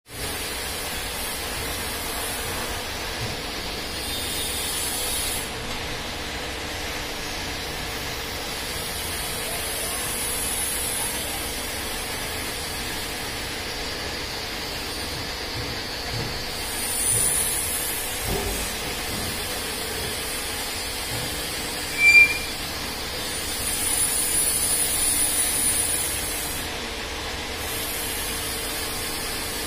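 Three-roll angle bending machine running, its motor-driven rolls bending a 50 mm steel angle bar into a curve: a steady hum with a high hiss that swells every several seconds. A brief, sharp squeak about two-thirds of the way through is the loudest sound.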